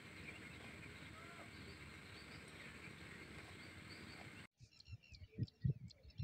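Faint rural ambience: a steady hiss with small, distant bird chirps. About four and a half seconds in, the sound cuts to a quieter scene with chirps and a few low thumps that grow louder toward the end.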